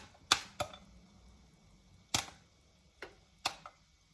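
Popcorn kernels popping in a lidded pot on the stovetop, about six sharp, separate pops at uneven intervals. These are the last stragglers after the heat is off, sparse popping that means the batch is nearly done.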